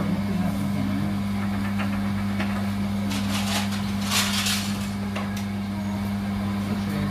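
Steady low electrical hum with faint background chatter; about three seconds in, two short breathy rushes of air as a nose is blown into a paper tissue.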